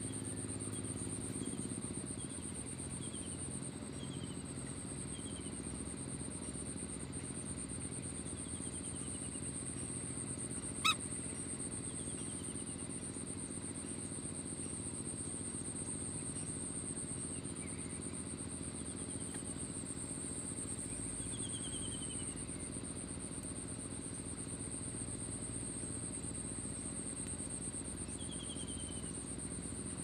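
Steady high-pitched insect drone, like crickets, with faint short falling bird chirps every few seconds and a low steady hum beneath. A single sharp click comes about eleven seconds in.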